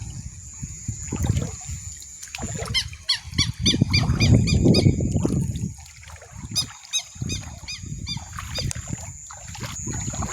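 Water splashing and sloshing, loudest about four to five seconds in. Above it run a steady high whine and two runs of quick repeated chirps.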